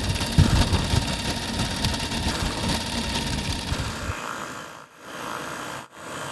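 Motor-driven Super 8 film mechanism running with a steady whir. A heavy, uneven low rumble under it over the first four seconds fades out, and the sound drops out briefly twice near the end.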